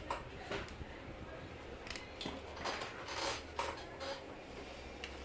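Small metal clicks and brief scrapes of bench power-supply leads and tools being handled on a keypad phone's battery contacts, about eight light clicks scattered irregularly, with a couple of short scrapes in the middle.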